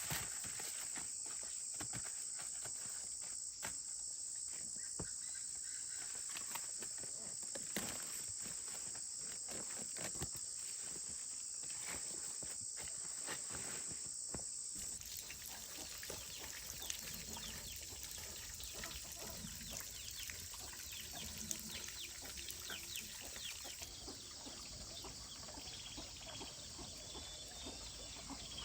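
Rural outdoor ambience: a steady high-pitched insect drone that stops abruptly about halfway through, with scattered clicks and rustling. After the drone stops, many short high chirps take over.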